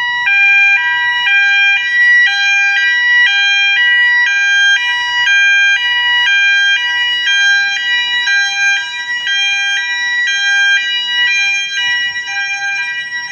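Zeta fire alarm sounders in full alarm after the manual call point is pushed: a loud two-tone alarm switching between two pitches about twice a second.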